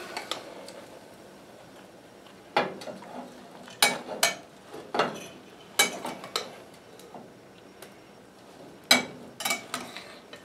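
Metal spoon stirring food in a glass saucepan, clinking against the glass now and then. The clinks are scattered and irregular, some in quick pairs, with a cluster about four seconds in and another near nine seconds.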